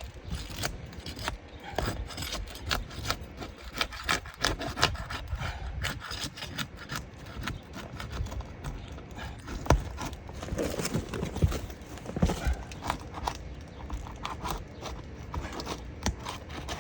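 Metal roof snake (shingle pry bar) working under roof shingles to break their seal and reach the nails: many irregular clicks, knocks and scrapes of the bar against the shingles and nails.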